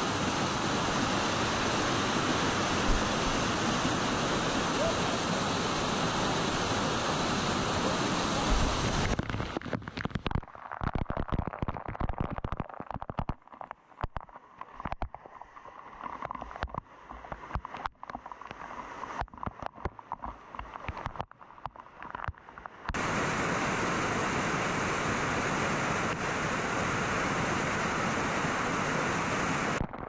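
Waterfall rushing, a steady even noise. About nine seconds in it gives way to a quieter stretch of irregular knocks and low rumbles, and the steady rush returns about twenty-three seconds in.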